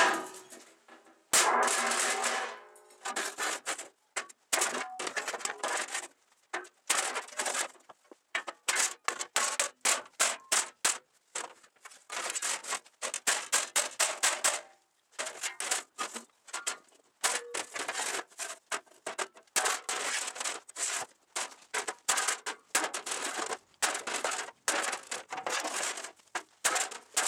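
Sledgehammer pounding a steel plate on a metal workbench: dozens of irregular blows, the steel ringing after several of them. The plate is being hammered back because its bend went too far.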